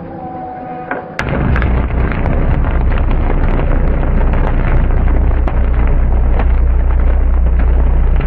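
High-voltage substation disconnect switch opening under load and drawing arcs across all three phases: about a second in, a sudden loud start, then a deep steady hum with dense crackling as the arcs burn.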